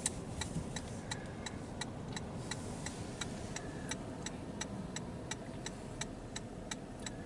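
Car turn-signal relay clicking steadily, about three clicks a second, over low cabin road noise.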